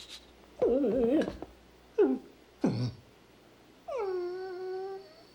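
A dog whining and whimpering: a wavering whine, two short falling whimpers, then one long held whine.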